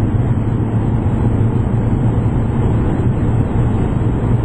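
Steady low drone inside the cabin of an Audi A4 1.9 TDI, a four-cylinder turbodiesel, cruising fast on a motorway: engine, tyre and wind noise blended together.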